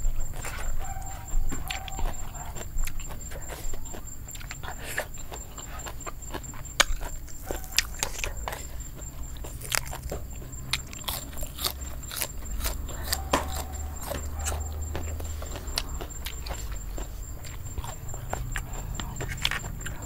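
A person eating a spicy seafood salad with crisp fresh vegetables: scattered crunches, chewing and the small clicks of shellfish being picked over.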